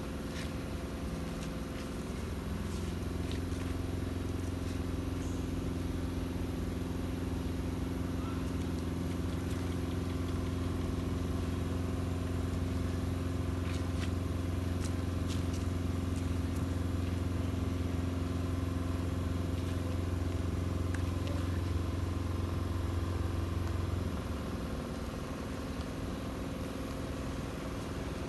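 Steady low hum of an engine running, with a few even tones in it; it grows a little louder about two seconds in and falls back near the end. A few faint light clicks over it.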